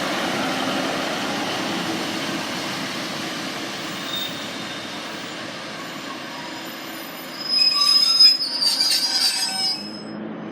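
Passenger train moving through the station, its running noise slowly fading, then a loud, high-pitched squeal of the wheels about seven and a half seconds in, lasting about two seconds.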